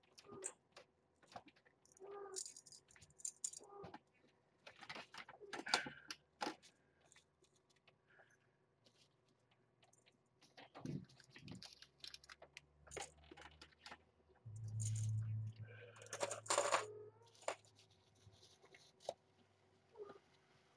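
Disposable absorbent pad rustling and crinkling in irregular bursts as it is handled and tugged at its edges, with scattered small clicks and taps; a low hum sounds for a few seconds about two-thirds of the way through.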